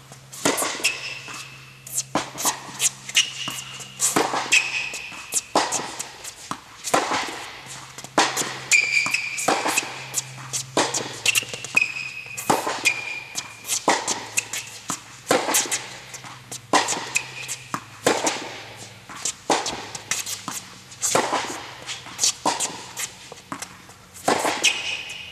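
Tennis rally on an indoor hard court: a steady back-and-forth of racket strings striking the ball and the ball bouncing, about one hit or bounce every second or so, echoing in the hall. Short high squeaks of tennis shoes braking on the court surface come between the hits, over a faint low hum.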